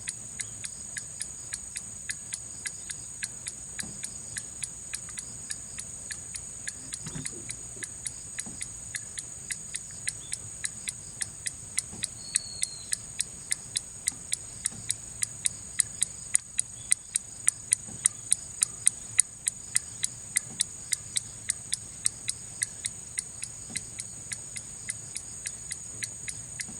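Swing-pendulum clock ticking at an even, regular pace, about two to three ticks a second, a little louder around the middle. The ticks are evenly balanced: the clock, which used to stop soon after starting, has been adjusted back into beat.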